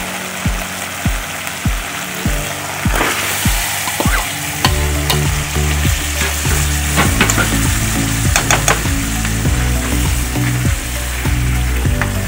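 Food frying and sizzling in a pan while it is stirred, with a spoon clinking against the pan now and then.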